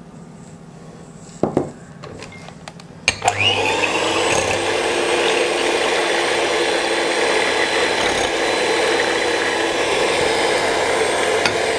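An electric hand mixer switches on about three seconds in, winds up quickly and runs steadily, its beaters whisking raw eggs in a glass bowl. A light knock comes shortly before it starts.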